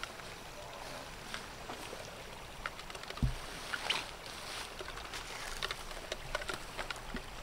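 Rustling and brushing of grass and leafy weeds as people move and grab through them, with scattered small clicks and one dull thump about three seconds in.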